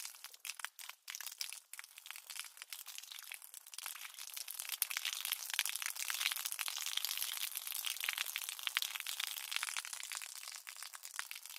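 Water splashing and spattering on concrete: a dense spray of many small droplet ticks. It is patchy for the first couple of seconds and fuller and steadier from about five seconds in.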